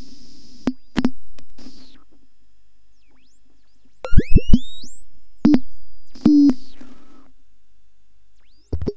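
Homemade stripboard-built modular synthesizer patch playing electronic bleeps: upward-stepping pitch sweeps, short percussive plops with low thumps, and brief bursts of hiss over a thin steady high tone. There is a quiet stretch, then a cluster of three loud plops about four seconds in, and more hits a little later.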